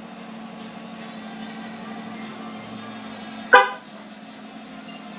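A single short horn chirp from a GMC Sierra pickup about three and a half seconds in, over a steady low hum.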